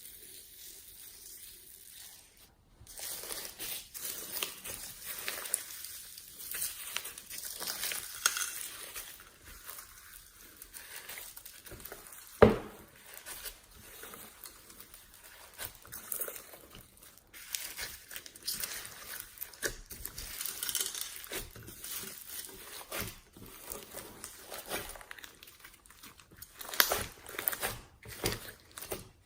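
Slime being squeezed, stretched and poked by hand, making irregular squishy noises full of small clicks and pops, with one loud sharp pop near the middle.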